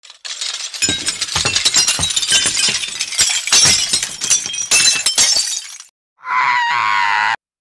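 Long shattering crash of breaking crockery or glass, a sound effect for a dropped coffee mug, with many clattering impacts over about five and a half seconds. Near the end a short wavering tone follows.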